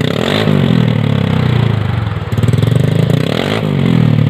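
Honda Click scooter's single-cylinder engine, fitted with an Akrapovic aftermarket exhaust with the silencer insert removed, being revved twice, the pitch rising and falling back each time.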